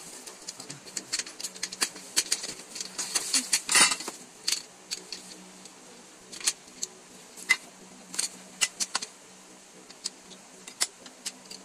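Office chair parts being handled and fitted together: an irregular run of sharp clicks and clinks of the chrome base, casters, gas-lift cylinder and plastic parts, with a louder cluster of knocks about four seconds in.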